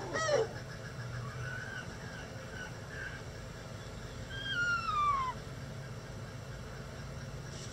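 Backyard chickens calling: a short squawk right at the start, a few soft clucks, then one longer call falling in pitch about four to five seconds in.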